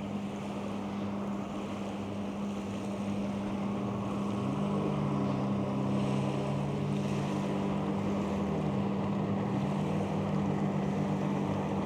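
Steady motor hum with one constant tone and a second, lower tone that rises about four seconds in and sinks back around nine seconds, over wind on the microphone and the sound of surf.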